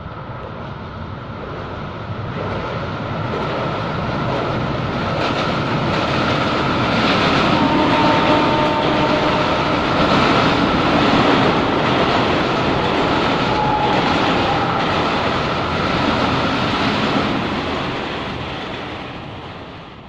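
Western Railway suburban electric multiple-unit train crossing a steel girder bridge: its running noise swells as it approaches, peaks in the middle with a rhythmic clickety-clack of wheels over the rail joints, then dies away as it passes.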